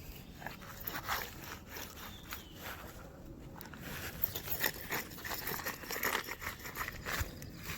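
Worn wheel hub bearing from a 2003 Ford Ranger being turned by hand, giving an irregular, crunchy grinding with many small clicks: the bearing is badly worn.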